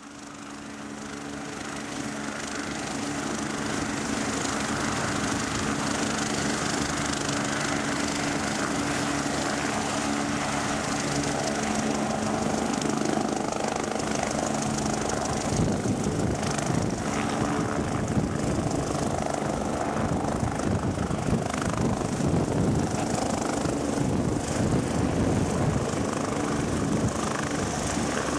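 Rescue helicopter's turbine engines and spinning rotor, growing louder over the first few seconds with a steady whine. About halfway through, the whine gives way to a rougher, beating rotor noise as the helicopter lifts off the pad and hovers.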